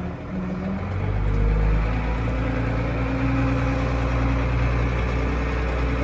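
Small Ford tractor's engine running, picking up in load and loudness about a second in, then holding a steady note.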